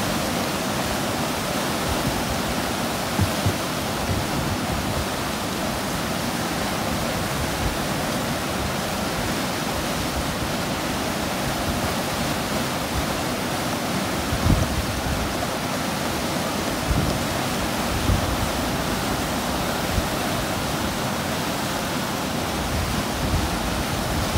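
Steady rushing of river whitewater breaking over a standing wave in fast rapids, with a few brief low thumps.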